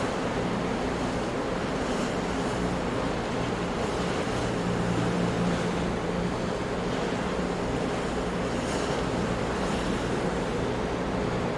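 Ocean surf breaking on rocks, a steady, even rush of water with no single big crash standing out.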